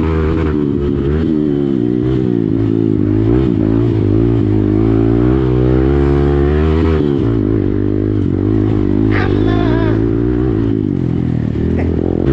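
Hero Xpulse motorcycle with an Akrapovic exhaust running, its revs rising and falling. The engine note drops clearly about seven seconds in, then runs steadier.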